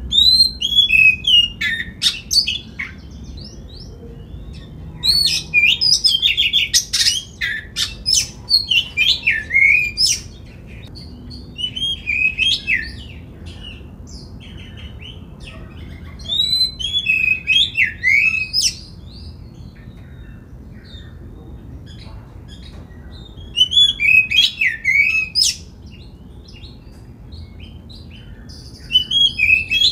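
An oriental magpie-robin singing in bouts of quick, varied whistled phrases with sweeping notes. Each bout lasts a few seconds, with short pauses between them.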